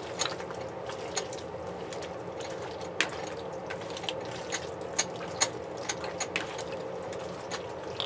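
Thinly sliced raw beef squelching wetly as it is mixed by hand in a soy sauce and pineapple juice marinade in a plastic bowl, with irregular sticky squishes and clicks, over a steady low hum.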